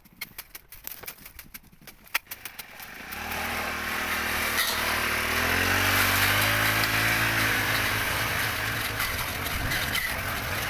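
A series of light clicks, then an engine starts about three seconds in and keeps running, its pitch rising and falling for a few seconds before it settles.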